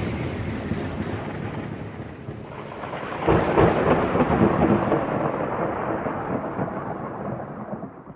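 Thunderstorm sound effect: steady rain with rolling thunder that swells about three seconds in, then fades and stops near the end.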